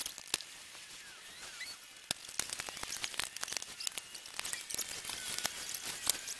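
Scattered sharp clicks and light taps from truck headlight parts and tools being handled, over a faint, steady high hiss.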